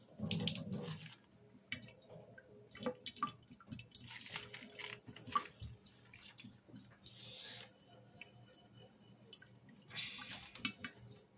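A soapy sponge squeezed in a stainless steel sink, a wet squelch in the first second, then scattered drips and small trickles of water into the sink. Near the end a thin stream from the faucet splashes briefly.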